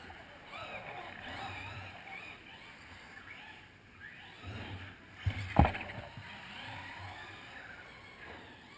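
Electric motors of radio-controlled cars whining, rising and falling in pitch as the cars speed up and slow down on an indoor track, with gym echo. A sharp knock, with a smaller one just before it, a little past halfway, as of a car striking something hard.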